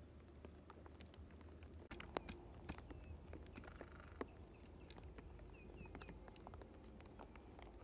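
Sparse faint clicks and taps from hands working twigs and a stick in grass, the sharpest just after two seconds in. A few faint bird chirps come in around the middle.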